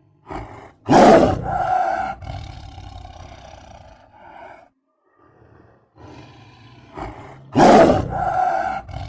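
Big-cat roar sound effect presented as a saber-toothed cat, heard twice. Each starts with a short grunt, then a loud roar that trails off over a few seconds.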